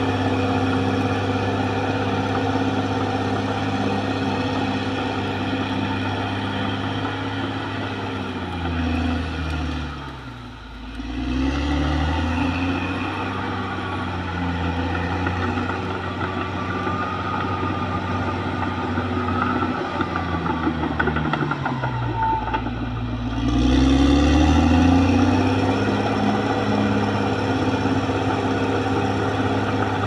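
Caterpillar D6R XL bulldozer's diesel engine running steadily. About ten seconds in, and again about twenty-two seconds in, the engine speed drops and then climbs back up.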